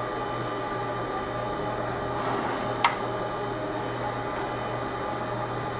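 Steady hum of a fiber laser marking machine running, with one sharp click about three seconds in.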